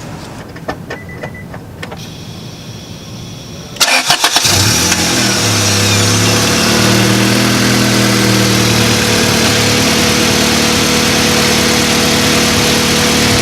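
Honda Del Sol's engine started on its first run after a fresh oil change: a few light clicks, then about four seconds in a brief crank, the engine catches, and it settles into a steady idle.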